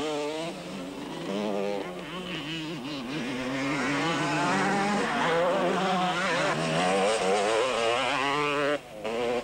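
Motocross bike engines revving hard as riders work through corners, their pitch wavering up and down with several bikes overlapping. The sound breaks off briefly near the end and resumes.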